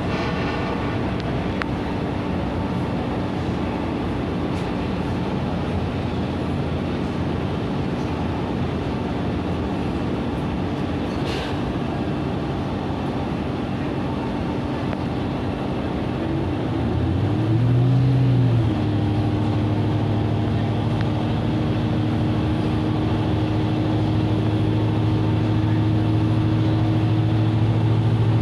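Regional passenger train heard from inside while running, a steady rumble of the ride. About 17 seconds in, a droning note from the train's drive rises and dips within a couple of seconds. It then settles into a steady hum over the rumble.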